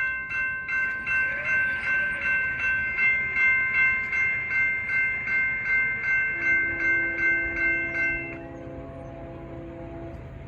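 A bell ringing quickly, about two and a half strokes a second, which stops about eight seconds in. From about six seconds in, a Norfolk Southern ES40DC locomotive's horn sounds one long steady chord that ends near the close, over the low rumble of the train.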